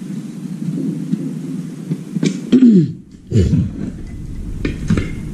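A person coughing and clearing their throat, two short sounds about halfway through, falling in pitch, over a low background murmur.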